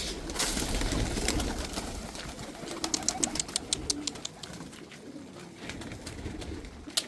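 Domestic pigeons cooing, with rustling early on and a quick run of about a dozen sharp clicks about three seconds in.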